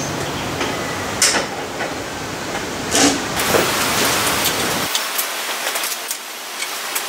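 A few knocks, then light metallic clicks near the end as a spanner is worked on a lathe's levelling foot, over a steady hiss.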